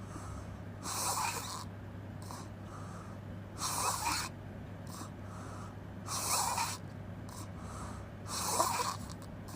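A person snoring with the mouth open: four loud breaths about two and a half seconds apart, with fainter breaths between them, over a steady low hum.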